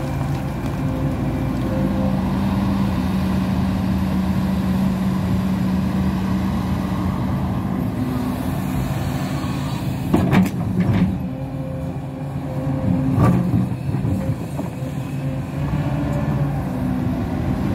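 Hidromek HMK 230LC excavator's diesel engine running steadily under load, with a few sharp knocks about ten seconds in and one more about three seconds later.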